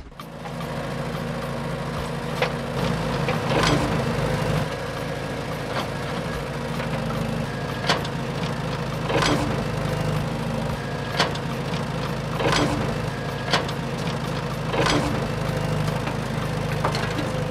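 Remote-control toy excavator running: a steady motor whir with irregular sharp clicks as it works.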